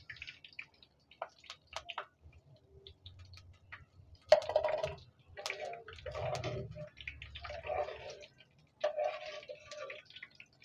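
Batter-coated okra deep-frying in hot oil in a clay pot: scattered crackles and pops, growing denser and louder from about four seconds in.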